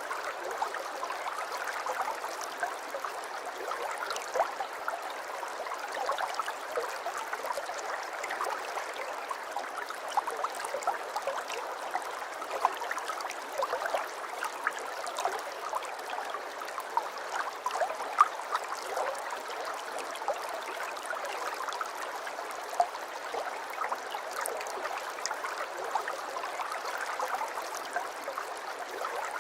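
Aquarium water trickling and bubbling steadily, with many small pops and ticks in the running water.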